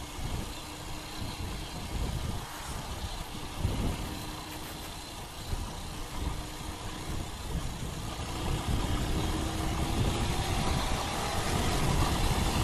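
CPI DTR 150 motorcycle riding along, its engine running under a steady rush of wind and road noise; the engine note climbs a little in the second half.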